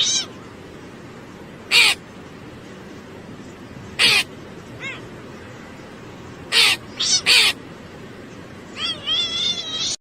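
An animal's short, loud calls, one every couple of seconds, then three in quick succession, ending in a longer wavering call near the end: the animal answering a sung request to "say meow".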